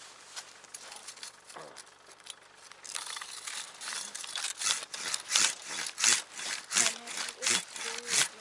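A hand saw cuts into a tree stump. Light scraping for the first three seconds gives way to steady, louder back-and-forth strokes, about three a second.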